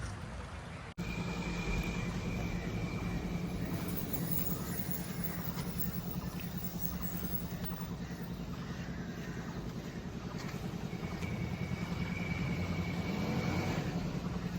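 Steady motor-vehicle engine noise close by, a low hum with a faint high whine coming and going. The sound drops out for an instant about a second in.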